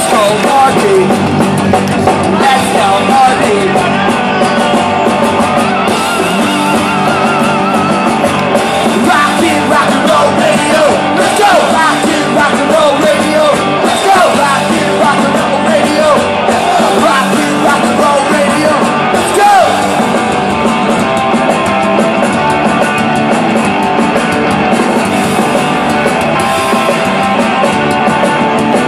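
Punk rock band playing live, loud and steady, with electric guitars and drums.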